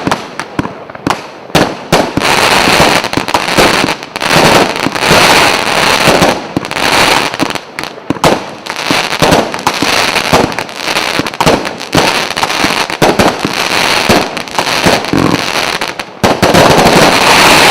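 A 100-shot, 0.8-inch fireworks cake firing: separate sharp bangs for about the first two seconds, then a rapid, nearly unbroken barrage of shots and bursts that is loudest near the end.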